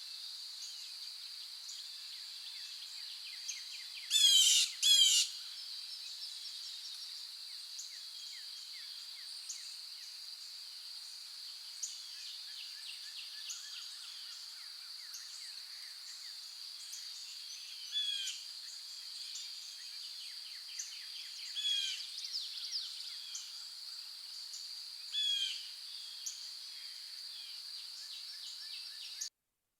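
Morning birds calling and singing over a steady high-pitched drone. The loudest are two short bursts of rapid notes about four and five seconds in, with further clear calls around eighteen, twenty-two and twenty-five seconds.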